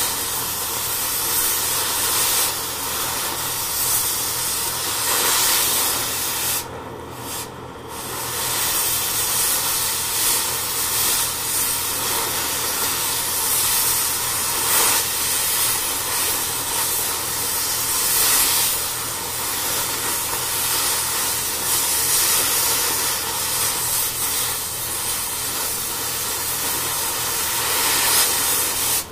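Oxy-fuel cutting torch cutting through heavy steel: a loud, steady hiss of the oxygen jet, with sparks and slag blowing out of the cut. The hiss dips briefly about seven seconds in, then carries on.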